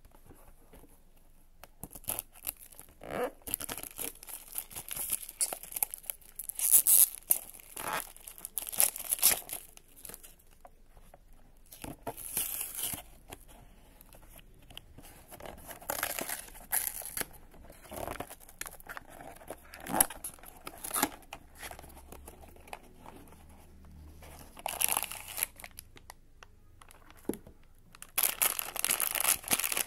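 Plastic shrink-wrap being torn and peeled off a small cardboard toy box, in irregular crackling rustles. Near the end, a foil blind bag crinkles steadily and louder as it is handled.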